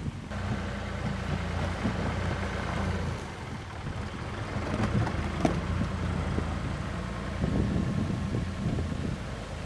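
Ford 555 backhoe's engine running steadily as it works rocks into place, with a few short knocks, one of them clearer about five and a half seconds in.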